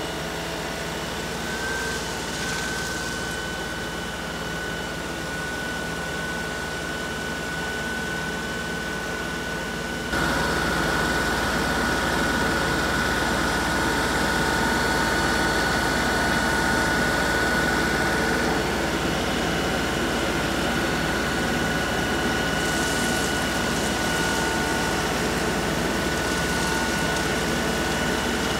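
LS compact tractor's diesel engine running steadily while carrying a full loader bucket of gravel, with a steady high whine over the engine. The sound steps up louder about ten seconds in.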